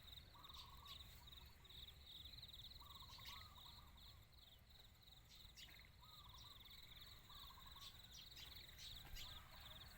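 Faint insects trilling steadily, a high rapid pulsing, with a few short trains of lower chirping calls, four in all, from another small animal.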